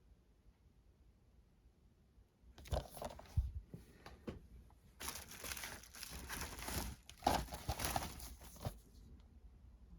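Packaging crinkling and rustling as it is handled: a brief burst about two and a half seconds in, then a longer stretch of crinkling that stops shortly before the end.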